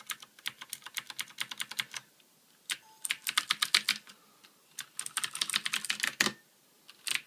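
Fast typing on a Ducky Shine 2 mechanical keyboard with Cherry MX Blue switches: quite noisy, typewriter-like clicky keystrokes coming in three quick runs separated by short pauses, with another run starting near the end.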